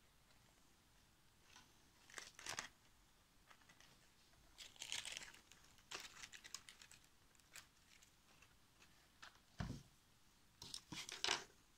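Faint, scattered rustling and crinkling as dried craft materials and newspaper are handled on a tabletop, with a soft knock about ten seconds in.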